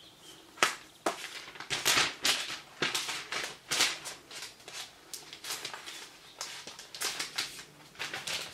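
Crinkling and rustling of the MacBook Air's packaging as the laptop is lifted out of its box and unwrapped: a run of short crackles in quick bursts.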